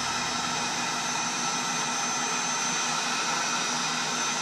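Electric heat gun running steadily: the even rushing hiss of its fan and heater with a faint steady whine. It is heating a metal barb fitting until it is hot enough to press a nylon fuel line onto it.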